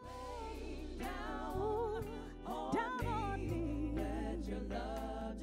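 Jazzy soul song: a woman sings a winding, ornamented melody with wide vibrato over sustained low instrumental backing.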